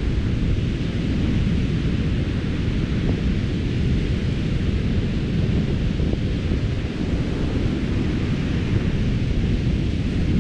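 Wind buffeting the microphone outdoors: a steady, loud low rumble with a hiss above it and no pauses.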